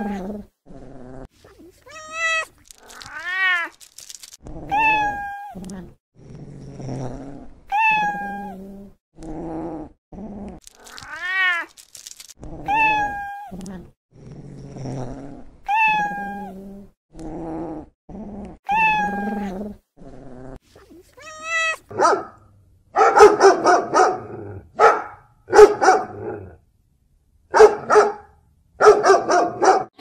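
A cat meowing over and over, a high call falling in pitch every couple of seconds, with lower, rougher sounds between the calls. About three-quarters of the way through come a string of loud, harsh calls.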